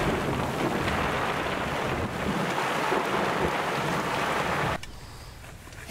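Heavy downpour on a vehicle's roof and windshield, heard from inside the cab as a steady, dense hiss. It cuts off suddenly near the end, leaving a much quieter background.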